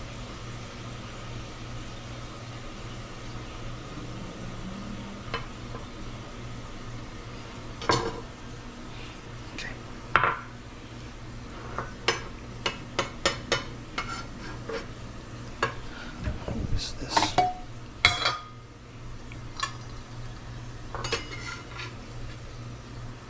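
Chef's knife scraping and tapping on a wooden cutting board as minced garlic is gathered up and moved into a small metal bowl: scattered sharp knocks and clinks, several in quick succession about halfway through, over a steady low hum.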